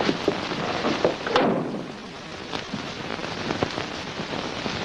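Footsteps on a wooden floor and a door being handled, with a heavier knock about a second and a half in, then a few lighter steps over a steady background hiss.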